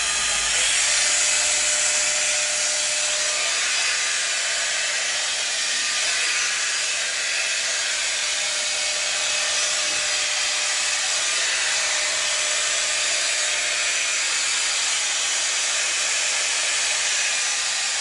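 A 5-in-1 hot air styler with a round brush attachment running steadily, blowing a constant rush of air with a faint motor whine.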